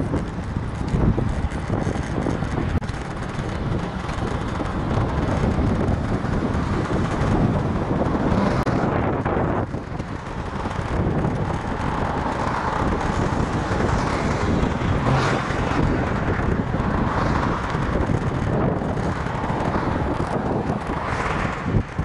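Wind rushing over a bicycle-mounted camera's microphone as the bike rides along a city road, mixed with the steady noise of car traffic passing on the road alongside.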